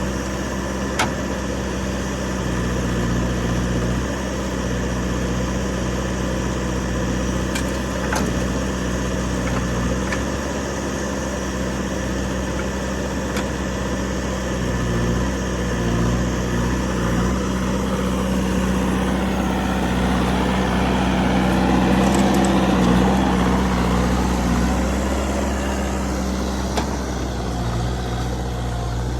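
Diesel engine of heavy farm or earthmoving machinery running steadily. It works harder for a few seconds about twenty seconds in, with a few light clicks or knocks along the way.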